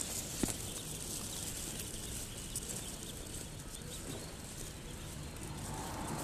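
A crowd of three-day-old laying-breed ducklings peeping together in a dense, high chatter, with a single knock about half a second in.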